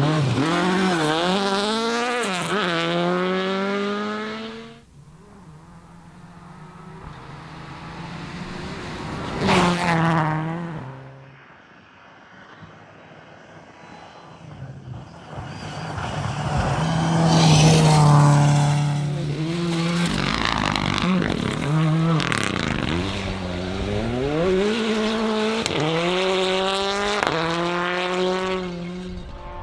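Rally car engines revving hard and changing gear, the pitch climbing and dropping with each shift, with cars rushing past in a few short loud passes.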